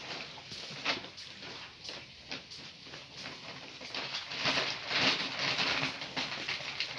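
Great Pyrenees mother and puppies moving about on straw bedding: rustling and the patter of paws with scattered small clicks, busier and louder between about four and six seconds in.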